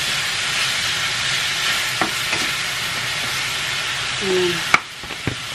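Ground meat sizzling and frying in hot oil in a frying pan, with a few sharp knocks of a wooden spatula against the pan. The sharpest knock comes near the end, just before the sizzle briefly drops away.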